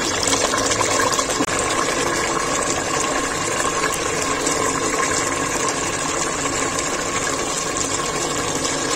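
Black chickpea curry bubbling and sizzling steadily in oil in an aluminium pressure-cooker pot over high heat, the masala being fried until the oil separates and floats on top.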